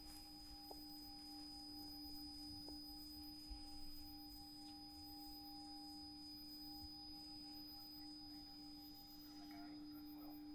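Faint, steady held tones, a soft sustained drone of several pitches that does not waver.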